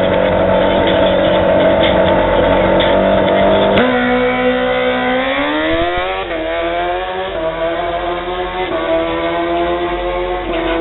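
Drag-racing motorcycle engine held at steady revs on the start line, then launching about four seconds in: the pitch climbs hard, drops at each upshift and climbs again, several times as the bike pulls away down the strip.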